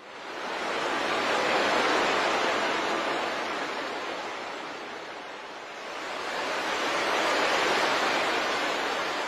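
Ocean surf: waves washing in two slow swells, each rising and then fading.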